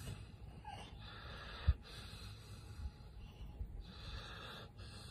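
Faint, slow breathing of a dog asleep with its head on a person, and one soft bump just under two seconds in.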